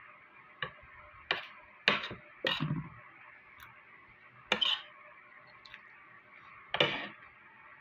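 Cutlery clinking and knocking against plates during a meal: about six separate sharp clicks, spaced unevenly.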